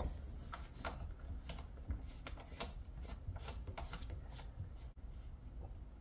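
Faint, irregular light clicks and rubbing of a hand working the brass service-port valve on a tankless water heater's isolation valves, over a low steady hum.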